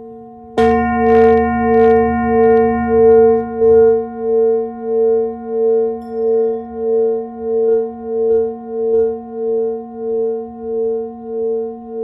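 Large brass singing bowl struck once with a ball-tipped mallet about half a second in, then ringing with a slow pulsing wobble, about one and a half pulses a second, slowly fading.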